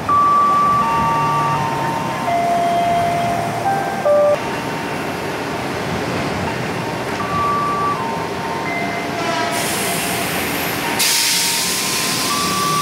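KRL Commuter Line electric train standing at a station platform: steady whining tones from its equipment hold and then jump between pitches over a rumble. A loud hiss starts about eleven seconds in.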